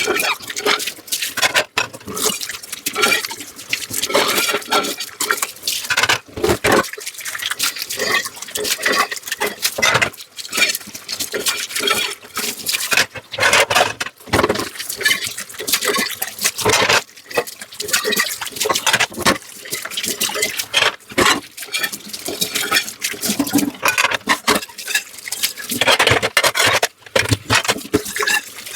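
Dishes being washed by hand under running water: water running and splashing, with frequent irregular clinks and knocks of dishes.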